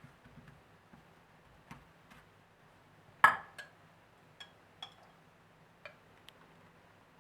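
Light, scattered clinks and taps of hard objects being handled, some with a short glassy ring. The loudest clink comes about three seconds in.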